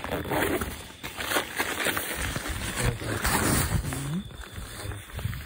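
A dog vocalising close by in the dark: rough, growl-like noise, then a couple of short pitched whines about four seconds in. This is the sound that frightened the campers awake.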